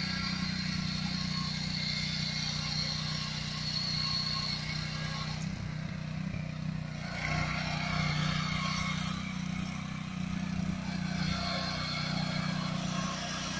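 Power weeder's Honda GX200 single-cylinder petrol engine running at a steady speed while the machine tills.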